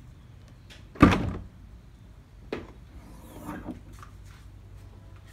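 Trunk lid of a 2017 Chevrolet Camaro unlatching with a sharp thunk about a second in, followed by a few fainter knocks as the lid opens.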